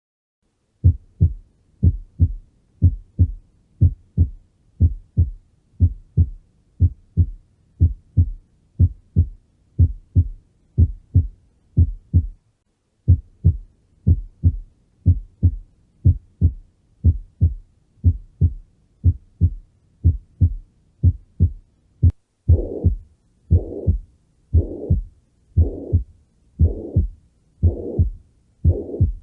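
Recorded heart sounds: a steady lub-dub of first and second heart sounds, about one beat a second, with a brief break partway through. After a click about 22 seconds in, it changes to longer, noisier beats typical of a heart murmur.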